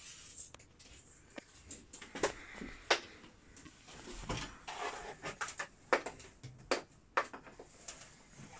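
Clicks and knocks as the door of a campervan's Dometic oven is opened and the oven is handled, with a series of sharp knocks scattered over several seconds.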